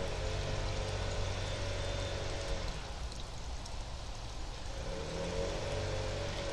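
Engine of lawn power equipment running steadily in the background over a steady hiss. Its hum drops away about halfway through and comes back near the end.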